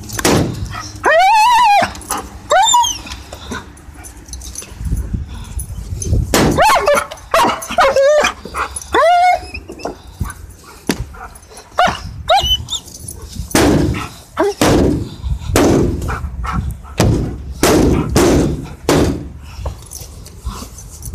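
A German shepherd vocalizing loudly. First come high whining yelps that bend up and down in pitch, then a run of short, deep barks and woofs in the second half.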